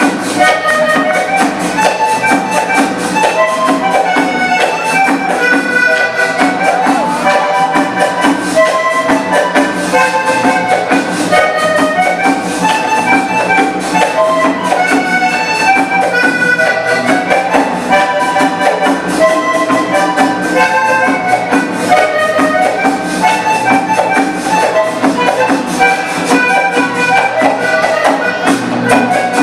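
Live Panamanian folk music for the dance El Punto: a small conjunto of guitars, bass guitar and drums playing a steady rhythm under a sustained melody.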